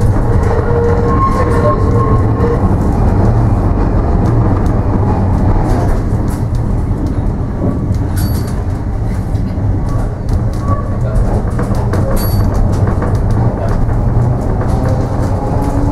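Heritage electric tram running along its track, heard from inside the wooden car: a steady low rumble with scattered clicks and rattles from the wheels and body.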